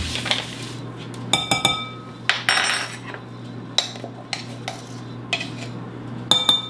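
Measuring spoon scooping baking powder from its can, clinking on the can's rim and scraping as it is levelled: a few sharp ringing clinks among short scrapes.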